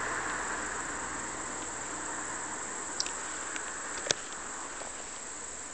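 Steady outdoor background hiss that slowly fades, with two short clicks about three and four seconds in.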